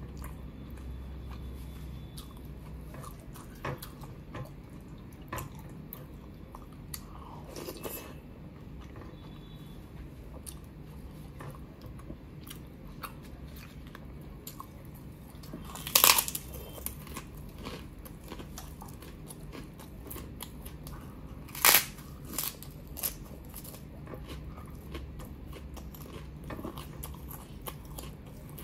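Close-miked eating: ongoing chewing and small wet clicks of a hand mixing rice and curry. Two loud, sharp crunches of papad being bitten, about halfway through and again about six seconds later.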